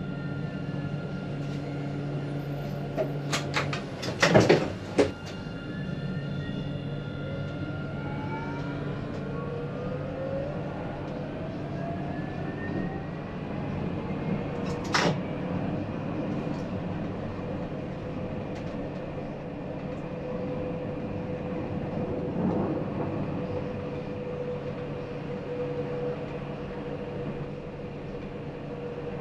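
Electric tram: a cluster of sharp clicks and knocks about four seconds in. Then the traction motors' whine rises in pitch over about ten seconds as the tram picks up speed, and settles into a steady tone and running hum.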